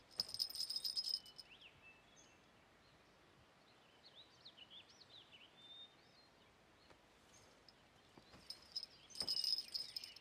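Small bells on a wrist bracelet jingling as the wrist is shaken, rung as a summons: a burst of about a second at the start and again near the end. Faint bird chirps in between.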